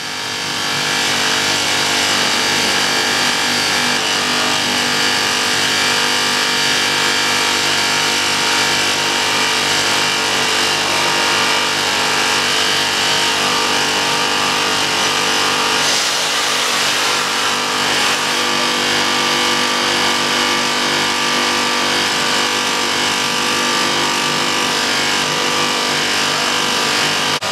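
Sharp split air-conditioner outdoor unit running steadily, its compressor and condenser fan giving a constant hum and whir. The unit is chilling a freezer box for ice-making, which is down to about −14 °C with the suction pressure at about 14 PSI. The sound builds over the first second and then holds level.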